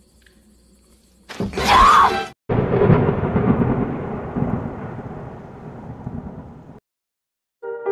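A loud burst of noise with a shrill cry through it, cut off sharply, then a deep cinematic boom that rumbles and slowly dies away over about four seconds, the film's title hit. Electric piano music starts near the end.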